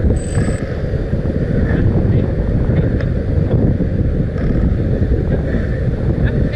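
Strong wind buffeting the microphone on an open beach: a loud, steady low rumble.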